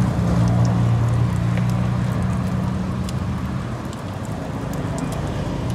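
A motor vehicle's engine running with a low steady hum that fades away over the first few seconds, over a continuous hiss and a few light clicks.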